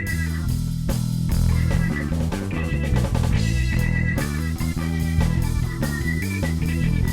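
Background rock music with guitar, bass guitar and drums, a steady beat under a repeating guitar line.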